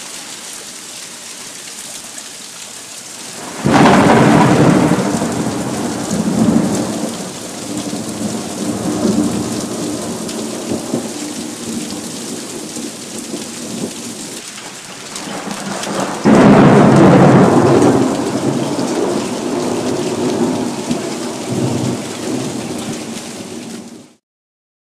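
Steady downpour of rain and hail in a storm, broken twice by loud thunderclaps, about four seconds in and about sixteen seconds in, each rumbling away over several seconds. The sound cuts off suddenly near the end.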